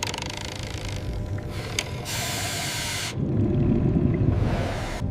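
Mechanical ratcheting clatter, then a loud hiss of about a second about two seconds in, followed by a low rumble and a fainter hiss near the end.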